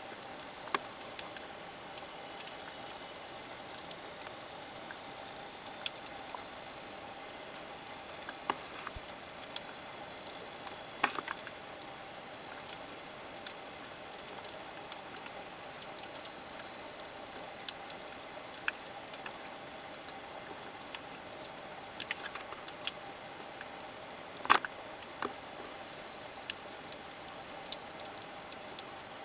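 Underwater sound over a shallow coral reef: a steady hiss and faint hum with scattered sharp clicks and crackles, one or two a second, a louder click about eleven seconds in and another a few seconds before the end.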